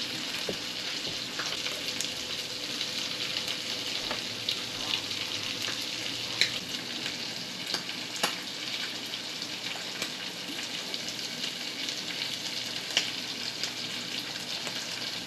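Hot oil frying in a pan: a steady sizzle with scattered crackles and a few louder pops.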